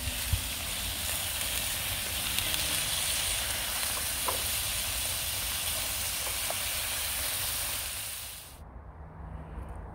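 Sausages sizzling in hot fat in a frying pan on a portable gas stove, a steady hiss with a light click of tongs turning them about four seconds in. The sizzle cuts off abruptly near the end.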